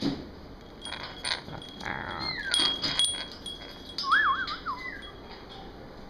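Pet parrot whistling: a few short, steady high whistles and sliding notes, then a wavering, warbling whistle about four seconds in, with light clicks and rattles.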